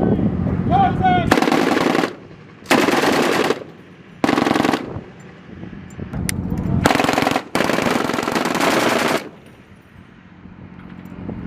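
Machine gun firing five short bursts of automatic fire, the last two almost back to back and the final one the longest, over a steady low hum.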